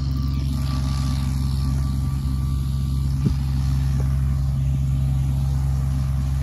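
Tractor engine running steadily while bush hogging pasture with a rotary cutter, with one short click a little over three seconds in.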